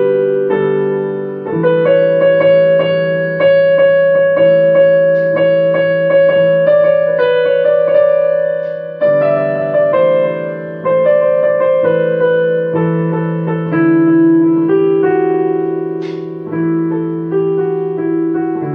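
Piano music: slow notes and chords, each ringing and fading before the next is struck.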